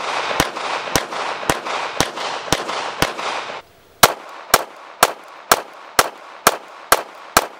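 9mm Glock 19 pistol fitted with a GSOD compensator, fired in rapid strings of about two shots a second, some fourteen shots in all, with a brief break just before the middle.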